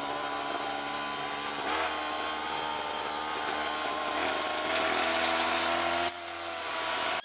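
A small motor-driven tool running steadily, its pitch wandering slightly and dropping off briefly about six seconds in.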